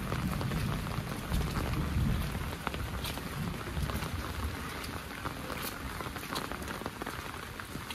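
Heavy rain falling steadily, with many sharp drop ticks over an even hiss. A low rumble underneath eases after about four seconds.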